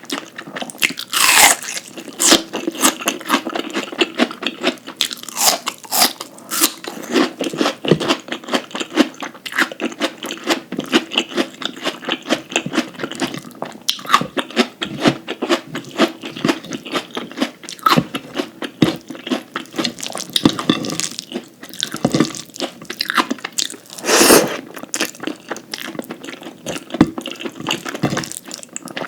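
Close-miked mouth sounds of a person chewing crunchy food, with a constant crackle of small clicks and louder bites about a second in and again near the end.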